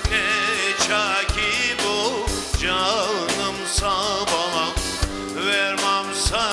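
A man singing a Turkish folk song (türkü) in long, ornamented, wavering phrases, with a live band accompanying and a drum striking about once a second.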